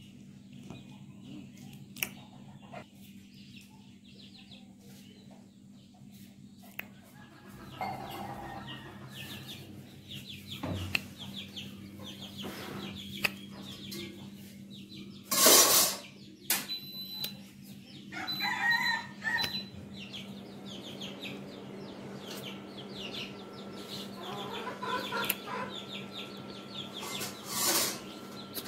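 Chickens clucking and a rooster crowing in short calls, over a steady low hum. A loud, short burst of noise comes about halfway through.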